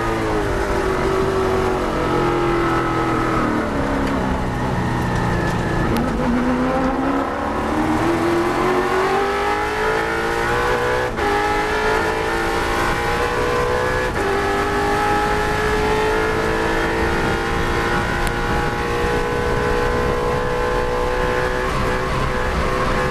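In-cabin sound of the HQ Holden Monaro's racing V8 at speed. The engine note drops over the first few seconds, then climbs steadily under full throttle, with a brief break about eleven seconds in, and holds high near the end as the car nears 258 km/h.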